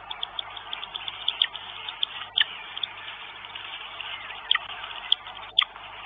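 Irregular sharp clicks and taps, a handful of them louder, over a steady hiss, picked up by a nest-camera microphone at a northern goshawk nest.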